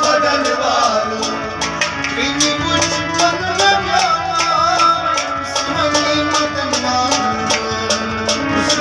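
Kashmiri folk song: a harmonium holding steady chords under a man's singing voice, with hand percussion keeping an even beat.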